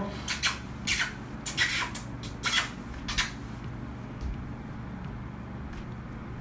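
About eight short smacking kiss sounds in quick, irregular succession over the first three seconds or so, then only a low steady hum.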